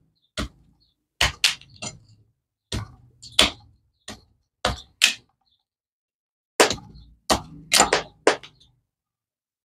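Knife chopping into a hard-rind pumpkin (calabaza de casco), the blade landing in irregular sharp knocks, often two in quick succession, with a short pause in the middle.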